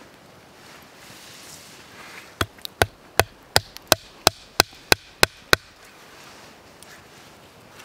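Hatchet chopping a small piece of wood on a board: about eleven sharp blows, roughly three a second, starting a little over two seconds in and stopping a little past the middle.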